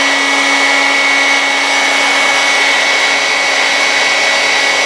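Hair dryer running steadily, drying fresh paint on a small resin statue hand: a rush of air with a steady low hum and a high whine.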